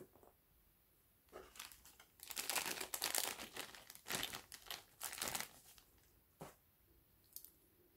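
Thin clear plastic bag crinkling as a pair of wired earphones is pulled out of it, a few seconds of dense crackling, then a couple of light taps.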